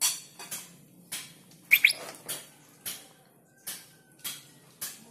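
A steel spoon scooping out meatball dough and knocking it off into a pot of hot water: a short clink nearly twice a second. A bird chirps twice, quick rising chirps about two seconds in, louder than the clinks.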